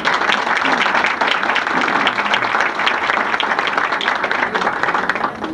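Audience applauding steadily, a crowd clapping, fading out at the end.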